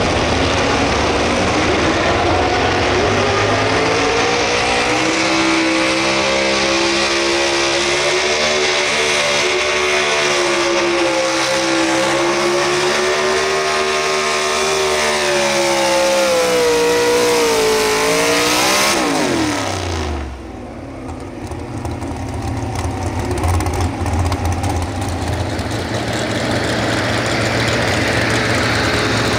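A naturally aspirated two-wheel-drive pulling truck's engine runs loud at high revs under load while pulling the weight sled, its pitch wavering up and down. About 18 seconds in the revs fall away sharply as the pull ends. After that a truck engine idles with a low, steady rumble.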